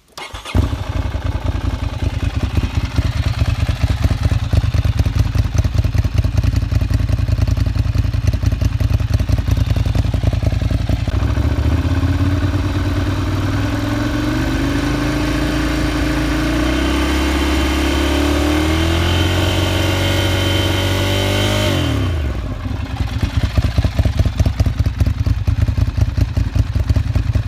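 Motorcycle engine through an SC Project GP-Tech exhaust with its silencer insert fitted, idling with a choppy, pulsing beat. About eleven seconds in it is revved and held at raised revs, its pitch climbing slowly for about ten seconds, then drops sharply back to idle.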